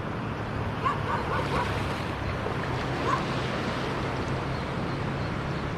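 Surf washing steadily on the shore, with wind noise on the microphone and a faint steady low hum underneath.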